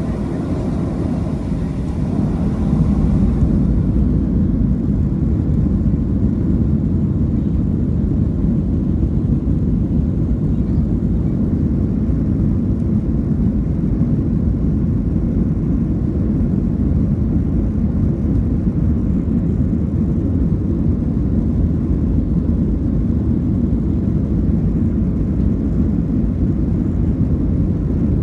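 Steady low rumble inside a Boeing 737 cabin, from the jet engines and airflow, growing louder about three seconds in and then holding even.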